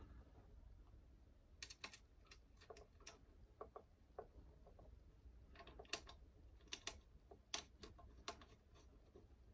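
Faint, irregular small clicks and ticks of battery-cable terminals and terminal nuts being handled and fastened onto a power inverter's DC screw terminals, in a few short clusters.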